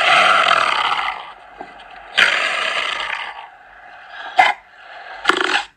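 Leopard calling: two long, harsh calls of about a second each, followed by two short ones near the end.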